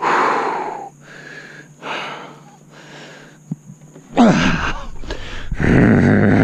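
A man breathing hard and groaning with effort while dragging a heavy log by hand: a loud huffing breath at the start and a few quieter breaths, then, about four seconds in, drawn-out strained groans whose pitch rises and falls.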